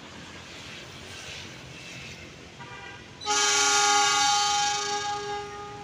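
Train locomotive's horn, a chord of several tones, starting faintly and then sounding one loud long blast about three seconds in. It tails off near the end.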